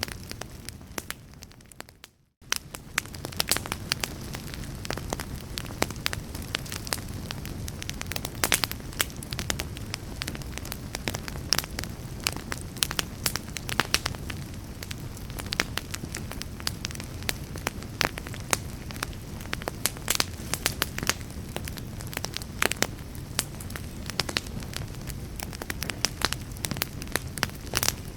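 Wood fire in a fireplace crackling, with many sharp pops over a steady low rumble. About two seconds in the sound fades away to near silence, then cuts back in abruptly.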